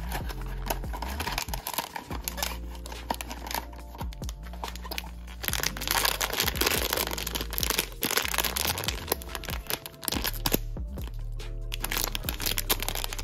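A blind-box plastic bag crinkling in the hands and being torn open, the crinkling loudest around the middle, over background music.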